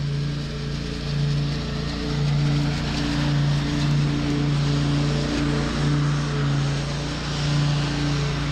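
Zero-turn riding lawn mower running as it drives up close, its engine and cutting noise growing louder from about two seconds in, over a low hum that swells and drops every second or so.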